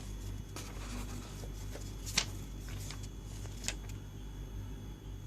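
Paper rustling as a warranty card and printed booklets are handled and leafed through, with two sharp taps about two seconds and three and a half seconds in.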